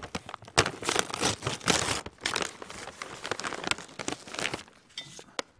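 A bag of tortilla chips crinkling and crackling as it is pulled open and tipped over; the crinkling dies away near the end.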